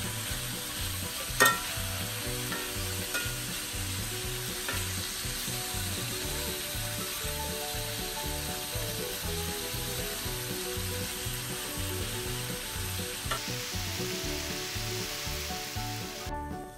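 Steak bites searing in a cast iron skillet: steady sizzling, with a metal spatula knocking and scraping against the pan as the pieces are turned, the sharpest knock about a second and a half in. The sizzle cuts off abruptly just before the end.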